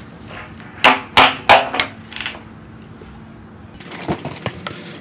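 Hollow knocks of PVC pipe and fittings being handled: three sharp knocks close together about a second in, then a few softer clicks near the end.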